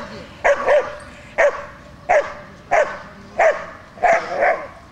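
Shepherd dog on a leash barking repeatedly, about eight loud barks in ones and pairs, at a helper in a bite sleeve and protective trousers threatening it with a stick: guard-work barking at the decoy.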